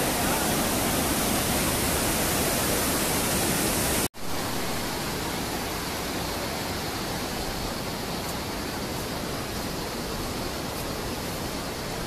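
Steady rushing noise that drops out sharply for an instant about four seconds in, then resumes a little quieter.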